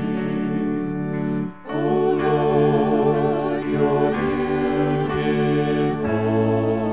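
Voices singing a hymn with vibrato over sustained accompanying chords; the music breaks off briefly about a second and a half in, then the next phrase begins.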